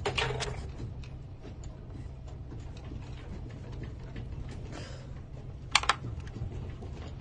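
Office desk fittings, shelves and monitor arms rattling and ticking in many small irregular clicks as an earthquake begins to shake the building, with a sharper clatter at the start and another about six seconds in.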